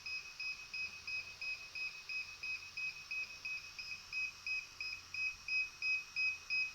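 DJI Mavic 2 Pro linking beeps: short high-pitched electronic beeps at one steady pitch, about three a second, sounding while the drone and its remote controller are put into pairing mode. The beeps grow louder near the end.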